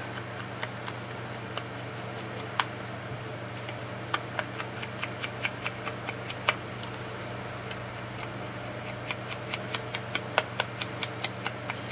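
Ink pad tapped and brushed along the edges of die-cut cardstock pieces: a run of light taps and paper rustles, coming closer together in the second half.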